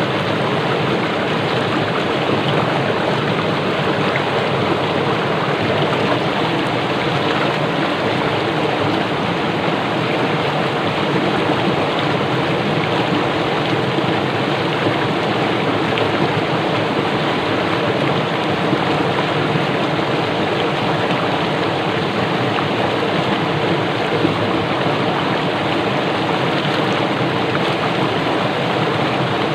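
Swift-flowing small stream rushing over rocks, a steady, unbroken rush of water that does not rise or fall.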